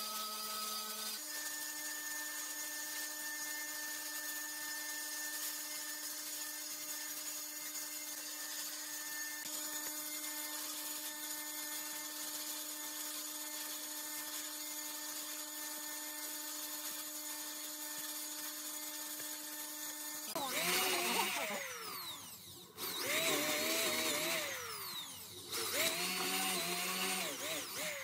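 Bandsaw running steadily as it rips thin slats off a wooden board: an even motor hum with a constant whine above it. About twenty seconds in, this changes to an electric drill boring into wood in three bursts, its speed rising and falling in each one.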